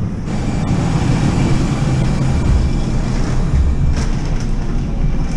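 Steady low engine rumble with a few short clicks about four seconds in.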